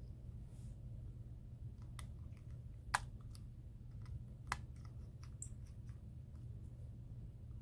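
Faint, scattered clicks and taps of small tools and iPhone parts being handled during a phone repair, the sharpest about three and four and a half seconds in, over a steady low hum.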